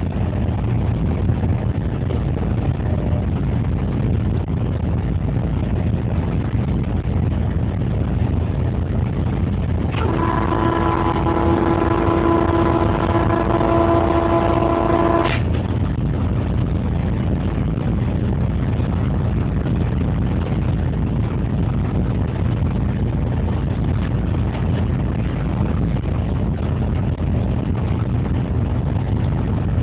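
Steady low rumble of a 2TE116U diesel locomotive under way, heard from inside the cab. About ten seconds in, the locomotive's horn sounds one steady note for about five seconds and cuts off sharply.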